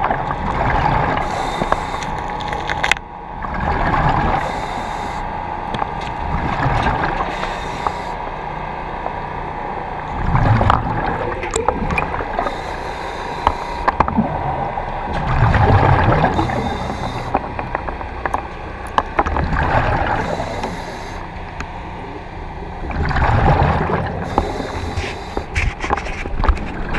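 Diver breathing in a surface-supplied Kirby Morgan dive helmet underwater: slow breaths with bubbling exhaust that swell every three to five seconds over a steady hiss and hum of the air supply.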